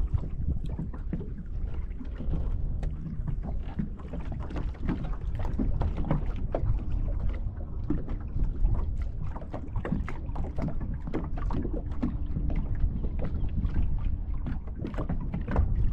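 Small waves lapping and slapping against a bass boat's hull in quick, irregular knocks, over a low wind rumble on the microphone.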